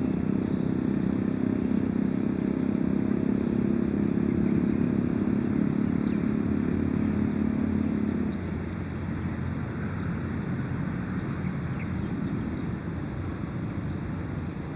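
Steady drone of a motor vehicle engine running, which drops away about eight seconds in, leaving a quieter, lower drone.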